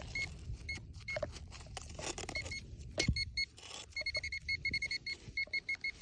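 Handheld metal detector pinpointer beeping in short high pips, scattered at first and then in a quick run of about four to five beeps a second from about two-thirds in, as it is held near the target in the hole. Faint scraping and a sharp knock of handling soil and roots underneath.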